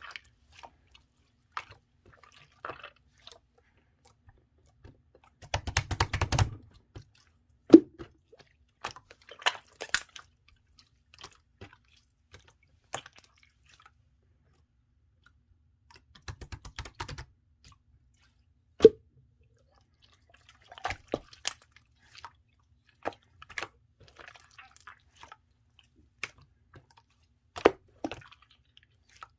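Clear slime being squished and pressed by hand: scattered sticky clicks and small pops with quiet gaps between, and two longer runs of rapid crackling about six seconds in and again around seventeen seconds.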